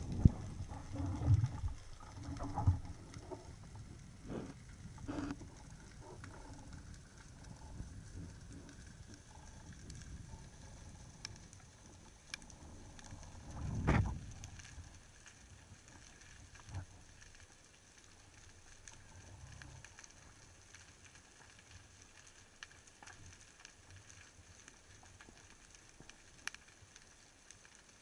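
Underwater sound picked up through a speargun-mounted camera's housing: muffled knocks and thumps of handling during the first few seconds and one loud low bump about halfway through, then a faint steady hiss with scattered small clicks.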